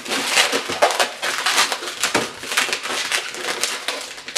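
Inflated black 260 latex balloons squeaking and rubbing against each other and against the hands as they are twisted into pinch twists: an irregular run of short squeaks and creaks.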